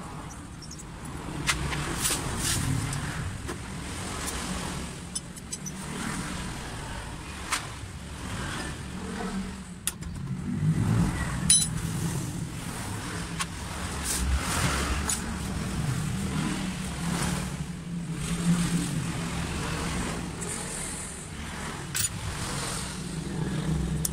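Road traffic rumbling steadily, with slow swells as vehicles pass. A few sharp metallic clicks of a wrench on a Kawasaki two-stroke engine's cylinder studs and casing come through it.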